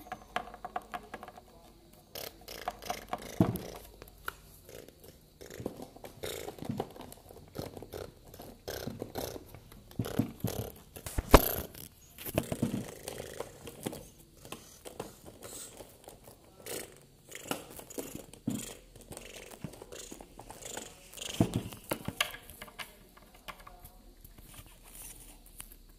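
Small plastic toy figures and toy furniture being handled and knocked against a plastic dollhouse: irregular clicks, taps and rustles, with the loudest knock about eleven seconds in.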